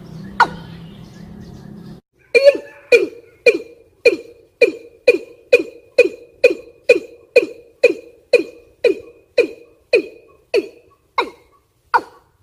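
Watercock calls from a lure recording of a female in breeding condition calling males. Short, sharp notes repeat about twice a second, slowing slightly near the end. A low hum under the first two seconds stops abruptly.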